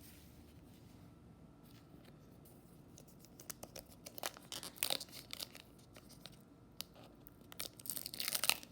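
Foil wrapper of a baseball card pack being torn open and crinkled. Scattered crackles start about three seconds in and grow denser and loudest near the end.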